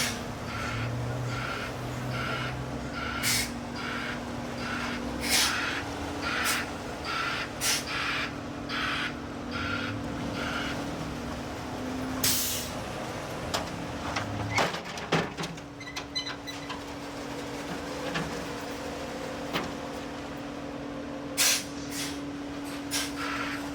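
Concrete mixer truck backing up: its reverse alarm beeps about once a second over the steady running of the engine, with short sharp hisses of air from the brakes now and then. The beeping stops about halfway through, a brief clatter of knocks follows, and the beeping returns near the end.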